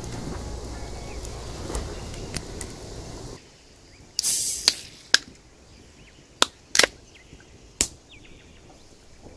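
Hand spice grinder being twisted over a pan of food: a short, loud crunching rasp, then several sharp cracks as the mill is turned a few more times. Before this, a steady background sound cuts off suddenly about three seconds in.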